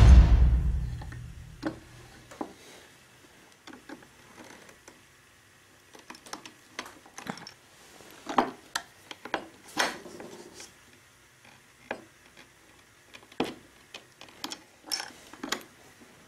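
Background music fades out in the first second or two, then scattered light clicks and taps of metal pen-kit parts being handled and fitted onto the pen barrel by hand, irregular and a second or so apart.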